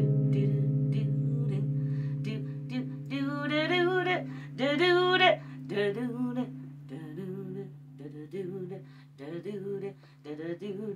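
An electric guitar chord rings out through a small amplifier and slowly fades. About three seconds in, a woman's wordless singing with vibrato comes in over it as a series of short phrases.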